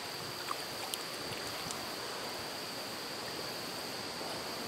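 Steady wash of river water with a constant high insect drone over it, and a couple of faint ticks in the first second.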